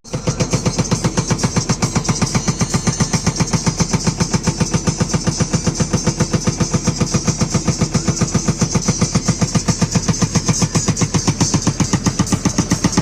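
Hydraulic breaker on a JCB 3DX backhoe loader hammering steadily in a fast, even rhythm of blows, with the backhoe's diesel engine running underneath.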